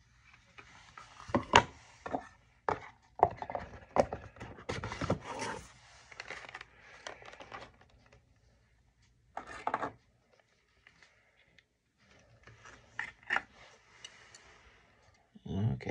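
Plastic packaging being handled: a clear plastic display case slid out of a cardboard box, then a small diecast car unclipped from its plastic base, with irregular clicks, rubbing and scraping. The handling comes in bursts, with a short pause about ten seconds in.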